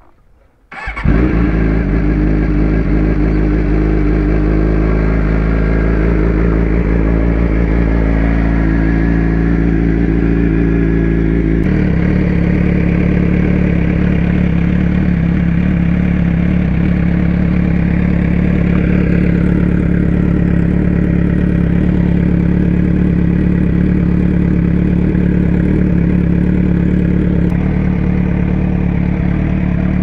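A 2006 Suzuki GSX-R600's inline-four engine starts about a second in and then idles steadily. Its tone shifts abruptly about twelve seconds in.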